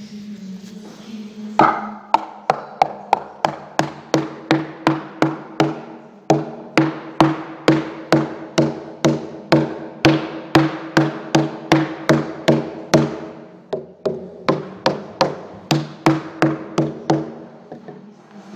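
Oak patch being knocked into its glued recess in an old oak beam: a run of sharp wooden knocks, about three a second, with two short breaks.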